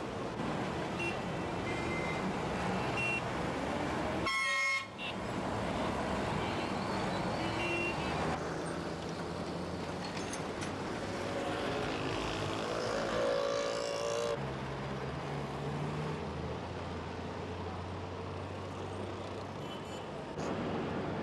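Heavy city road traffic: vehicle engines running, with horns honking now and then. The sound changes abruptly a few times.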